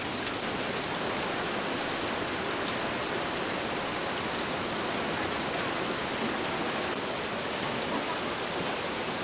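Swollen mountain stream rushing steadily, a constant even hiss of fast water from the strong rainy-season current.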